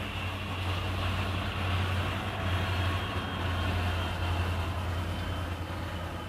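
Tank-car freight train rolling past, its two rear Norfolk Southern diesel locomotives going by with a steady low drone. The drone is loudest in the middle and eases as they pull away.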